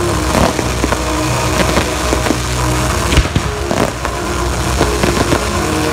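Aerial fireworks going off in a rapid string of sharp bangs and crackles over a continuous low rumble.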